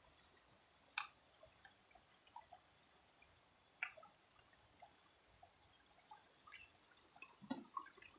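Faint water drips and small splashes as a plastic-bottle shrimp trap is handled in a shallow stream: a few separate drips, the clearest about a second in and near four seconds, and louder sloshing near the end as the trap is lifted. A steady high-pitched whine runs underneath.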